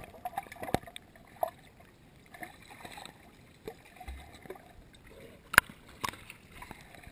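Muffled pool water heard through an underwater camera housing: bubbling and sloshing with scattered sharp clicks and knocks, a couple of louder clicks near the end.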